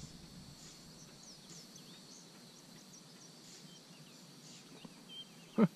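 Small birds chirping in short rising and falling notes over a steady, high insect drone. Near the end, a single brief loud sound.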